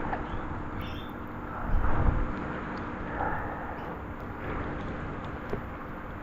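Steady heavy rain falling on a swimming pool, with water splashing and sloshing as someone swims. A steady low hum runs underneath, and a louder low rumble comes about two seconds in.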